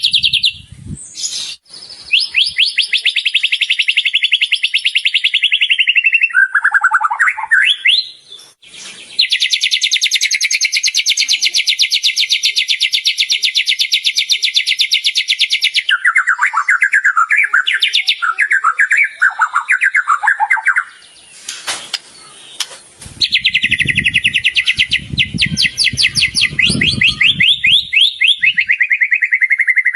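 White-rumped shama (murai batu) singing: long runs of very fast, even trills with a stretch of lower warbled phrases in the middle, the mimicked 'isian' material of other birds' calls in its song. A low rumble sits under the trills near the end.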